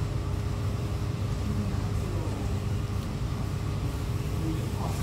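Steady low rumble of restaurant room noise with a thin constant hum, and faint distant voices now and then.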